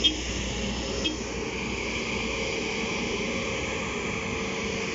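Steady city street ambience: a constant hum and noise of traffic, with a low rumble that fades about halfway. Two brief sharp, high clinks come at the start and about a second in.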